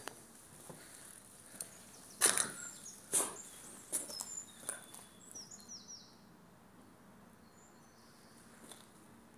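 Footsteps crunching on rubble and grit over a stone floor: a handful of irregular steps in the first five seconds, the loudest a little over two seconds in. After that only faint room tone, with a few faint high chirps about halfway through.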